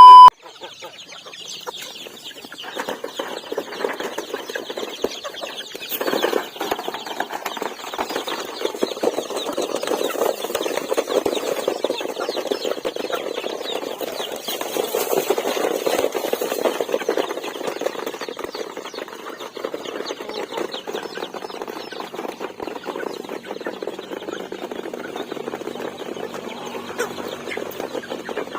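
A flock of chickens clucking and calling continuously, many birds at once in a dense, busy chatter.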